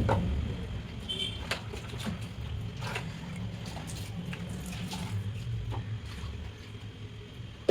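Rag being rinsed and handled at a bathroom sink: low trickling water with scattered small taps, clicks and patter from the wet rag and plastic fan parts.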